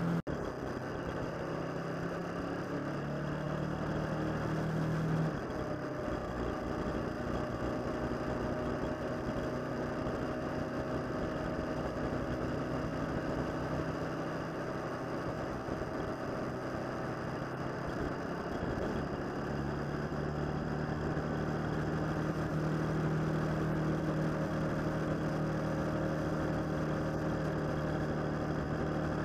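Motorcycle engine running on the move. Its steady low note breaks off about five seconds in and returns steadily for the last third.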